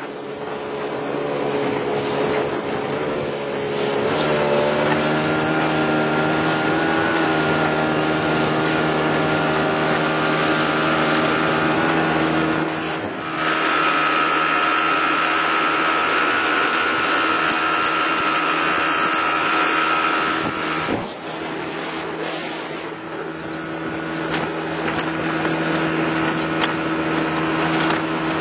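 Small fishing boat's motor running under way. It picks up speed over the first few seconds, runs louder with a higher whine through the middle, then eases back about two-thirds of the way in and holds steady.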